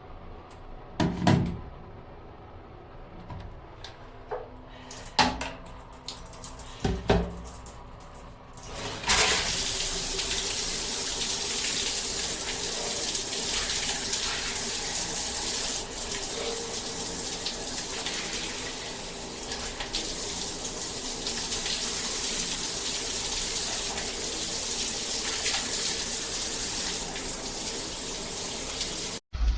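A few knocks, then water spraying steadily from a Moen Magnetix handheld shower head from about nine seconds in, cutting off suddenly near the end.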